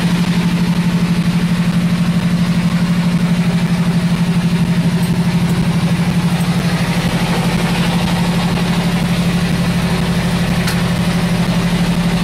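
An engine on a fishing boat running steadily, with an even, low throb that holds constant.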